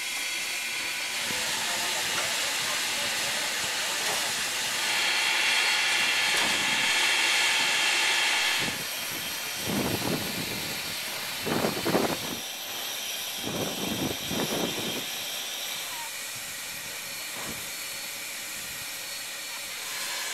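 Ja class steam locomotive Ja 1275 standing and hissing steam steadily. The hiss grows louder from about five seconds in and eases again just before the middle, and a few short, lower sounds come around the middle.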